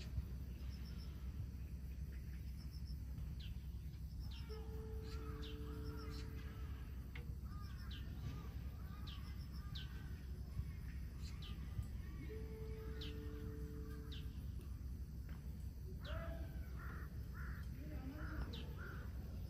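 Birds calling: several short series of harsh caws and scattered thin high chirps, over a steady low background rumble.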